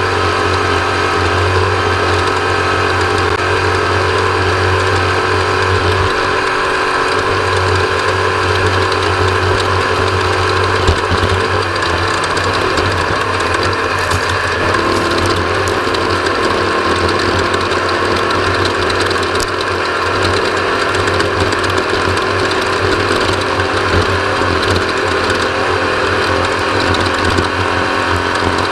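Off-road race vehicle's engine and drivetrain running steadily under racing load: a loud, continuous mechanical sound over a steady low drone, with one sharp knock about eleven seconds in.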